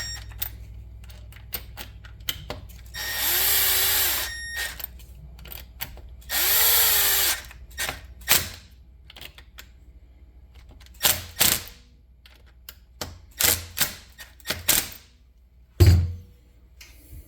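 Power drill run in two short bursts of about a second each, its motor speeding up and winding down each time, driving screws in. Between and after the bursts come scattered clicks and clanks of tools and small parts, with one loud knock near the end.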